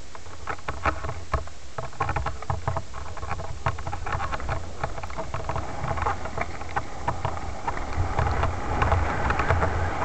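Mountain bike descending a dirt trail at speed. In the first half the tyres crunch over loose stones and the bike rattles and clatters hard; later it runs more smoothly with a steady tyre hiss. Wind buffets the microphone throughout as a constant low rumble.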